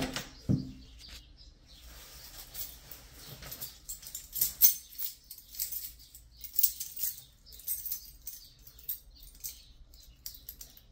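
A bunch of keys jingling and clicking in scattered bursts as someone works at a door lock, with two dull thumps right at the start.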